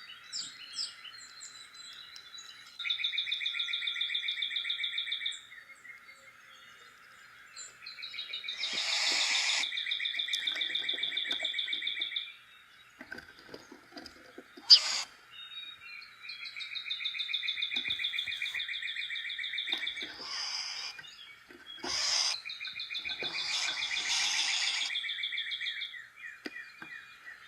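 Backyard songbird singing a long, rapid, even-pitched trill four times, each lasting two to four seconds, over a constant high-pitched background drone. A few short knocks come between the trills, and one sharp click about halfway through is the loudest sound.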